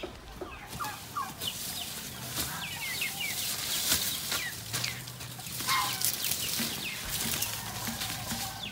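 Chickens calling with many short, high, falling chirps, over scattered knocks and scrapes of hand tools digging in soil.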